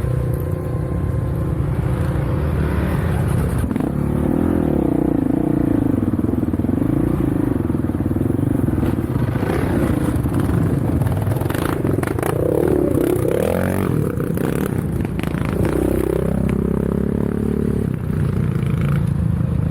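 Off-road vehicle engine running under load while riding, its pitch rising and falling repeatedly with the throttle, over a steady low rumble with some rattling.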